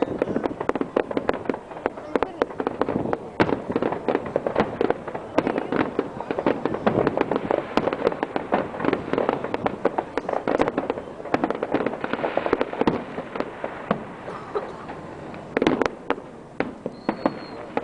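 Aerial fireworks display: a dense, continuous run of bangs and crackling pops that thins out briefly near the end, then a couple of louder bangs.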